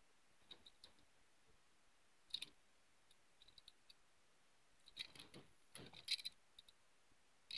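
Mostly near silence with a few faint clicks and taps from a small diecast model car being handled and turned over in the fingers, more of them about five to six seconds in.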